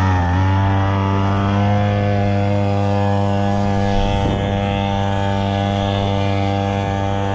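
Small outboard motor running, its pitch stepping up as it speeds up right at the start, then holding a steady drone.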